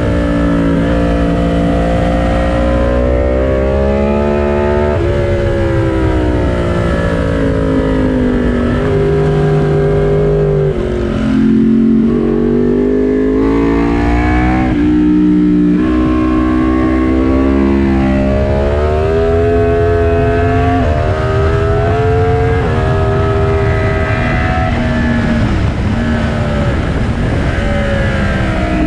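Yamaha motorcycle engine at full effort on track, its pitch climbing under acceleration and dropping sharply at several gear changes, then sliding down as it slows for corners.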